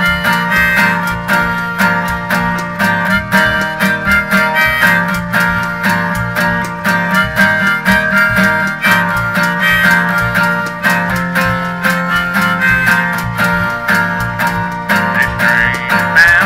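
Acoustic guitar strummed in a steady rhythm under a harmonica playing the melody, an instrumental break in a bluegrass-style gospel tune.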